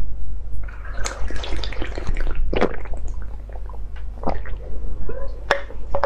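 Close-miked wet mouth sounds of ice cream being eaten: a run of sticky smacks and slurps, then several single sharp wet clicks of the lips and tongue.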